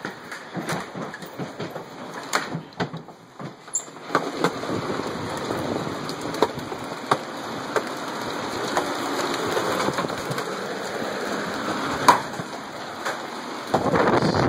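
Large hail pounding down in a dense, steady roar, heard from inside a house. Sharp separate stone impacts stand out every second or so, the loudest about twelve seconds in.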